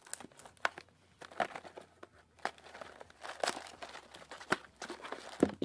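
A trading-card booster box and its packaging being torn open and handled by hand: irregular crinkling and tearing with sharp crackles.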